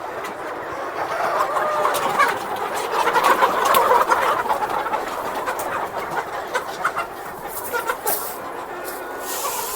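A large flock of chickens clucking and calling together in a dense, continuous chatter, loudest about three to four seconds in. A few sharp clicks sound through it.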